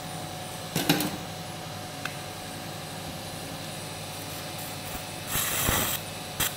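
Steady operating-room hum. A sharp click of a surgical instrument about a second in is the loudest sound. A little past five seconds in comes a short hiss of a monopolar electrocautery pencil cutting tissue, and a couple of instrument clicks near the end.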